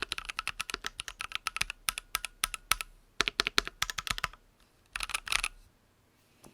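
Typing on a Keychron Q1 mechanical keyboard fitted with lubed Boba U4T 62g tactile switches, its case filled with poly-fill. A fast run of keystrokes breaks into a few short bursts, and the typing stops about five and a half seconds in.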